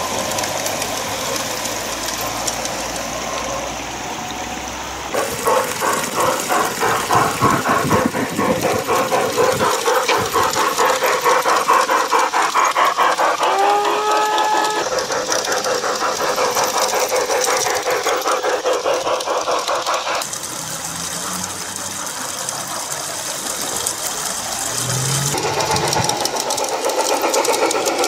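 LGB G-scale garden-railway trains running on outdoor track: a steady mechanical running noise with a fast, even rattling beat. The sound changes abruptly several times from one take to the next, and a short rising tone is heard about fourteen seconds in.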